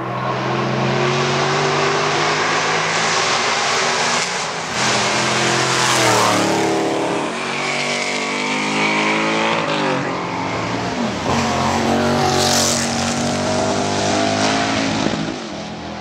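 Race car engine revving hard and accelerating past, its pitch climbing and dropping several times with gear changes. A brief high hiss comes about twelve seconds in.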